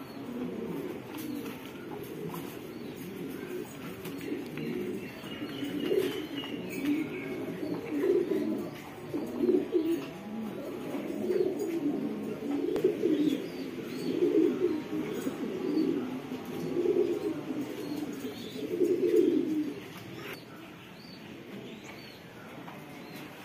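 Magpie pouter pigeons cooing: low, repeated coos that swell into a run of louder bouts every second or two, then ease off near the end, with a few faint higher chirps.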